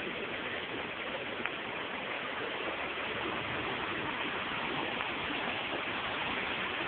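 Steady rushing of flowing floodwater, an even hiss with no let-up.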